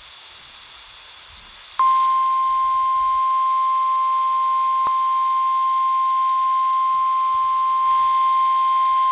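Emergency alert tone from a NOAA Weather Radio broadcast: the single steady 1050 Hz warning alarm tone, starting sharply about two seconds in after faint radio hiss. It signals that a warning, here a severe thunderstorm warning, is about to be read.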